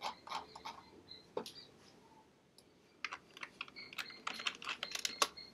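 Typing on a computer keyboard: a few keystrokes at the start, then a quick run of keystrokes from about halfway through as a search query is typed.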